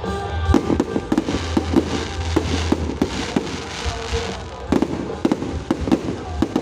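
New Year fireworks bursting in quick, irregular succession: many sharp bangs and crackles, with music playing underneath.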